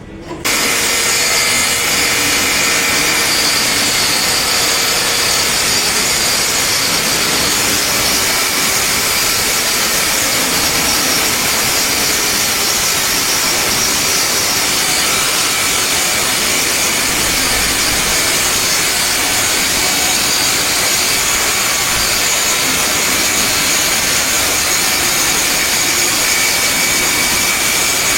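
A power tool running steadily. It starts abruptly and holds a loud, even hissing whine with no breaks.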